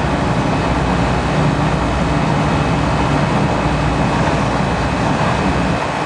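Steady low rumbling noise with a faint steady high-pitched hum over it.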